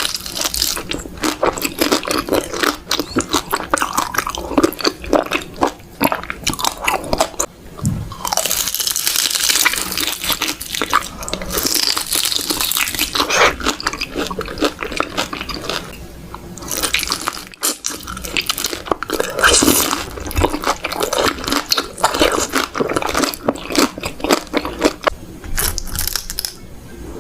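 Close-miked chewing and biting of cooked beef large intestines: dense, continuous crunchy and wet mouth sounds, broken by a very short gap about seventeen seconds in.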